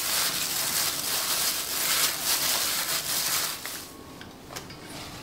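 Disposable plastic glove crinkling and rustling as a hand squeezes and mixes sliced chicken in marinade in a steel bowl; it stops about three and a half seconds in, followed by a light click.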